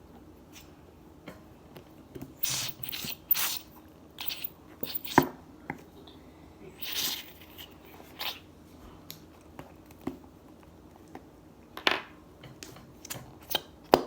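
Irregular handling sounds of slime-making: short squishy, sticky noises and light clicks and knocks as slime and containers are handled, with a sharper knock about five seconds in and another near the end.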